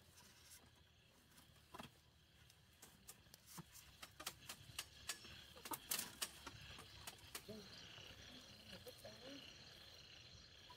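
Quiet clicking and snapping of split bamboo strips being pulled and worked by hand on a bamboo coop rail, a quick run of taps in the middle. Faint clucking of chickens near the end.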